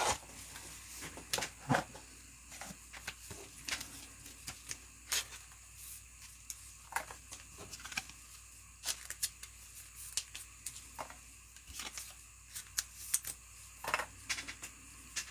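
Football trading cards and their foil pack wrappers being handled: scattered light clicks, crinkles and short rustles, a little more frequent near the end.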